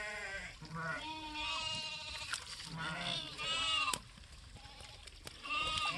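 A mixed herd of sheep and goats bleating, many calls overlapping. The calling eases for a moment after about four seconds, then picks up again near the end.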